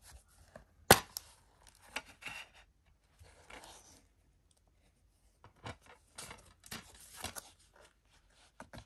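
Plastic DVD case being handled and opened: one sharp snap about a second in, then scattered rubbing and scuffing of the plastic case and its sleeve, with a few small clicks near the end.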